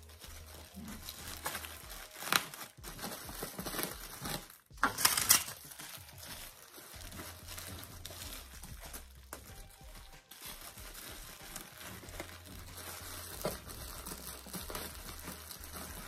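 Plastic bubble wrap crinkling and rustling as hands spread and tuck it over a box of strawberries, with sharper rustles about two seconds in and again around five seconds in.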